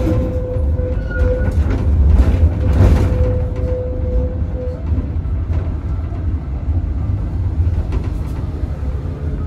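Heritage tram running on its rails, heard from aboard: a steady low rumble with a thin steady whine that fades out about five seconds in, and a louder, rougher stretch around two to three seconds in.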